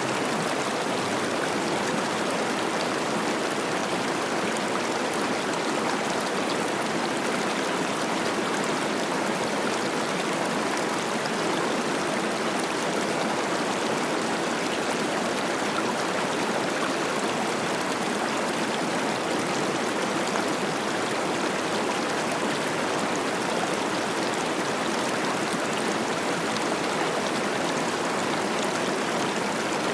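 Cache la Poudre River running high with spring snowmelt: a steady, unbroken rush of flowing mountain river water.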